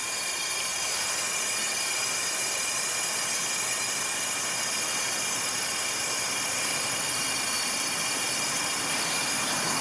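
Homemade propane burner, a copper nozzle in a cut-down propane tank, running steadily under a stockpot of water heating toward the boil: an even rushing hiss.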